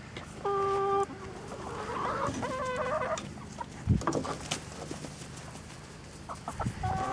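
Hens clucking: one drawn-out call about half a second in, then a run of shorter clucks, with a low thump near the middle.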